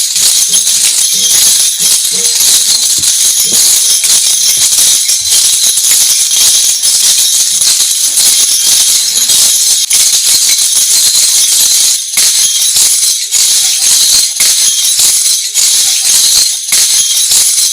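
Lezim, the Maharashtrian folk dance instrument, shaken so that the metal discs on its chain jangle in dense, rapid strokes without a break.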